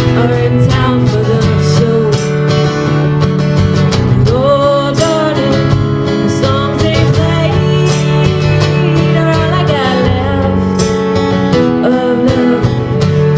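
Country song played on acoustic guitars, with a bending melody line over steady low notes.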